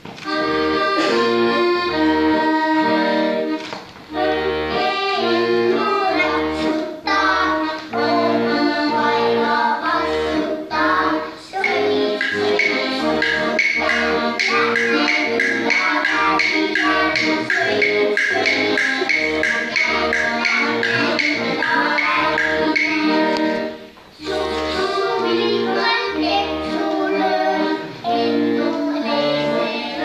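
Accordion playing a tune over an even beat in the bass. From about halfway through, a group of small children sing along. The music breaks off briefly near the end and starts again.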